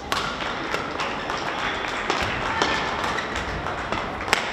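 Badminton racquets striking the shuttlecock in a fast doubles rally: a series of sharp hits at irregular intervals of roughly half a second to a second, the loudest about four seconds in, over the steady noise of a large sports hall.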